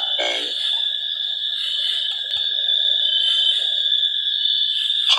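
Summer night chorus of calling insects and frogs: a steady high-pitched trill under a higher pulsing chirp that repeats about once a second, with one faint click about halfway through.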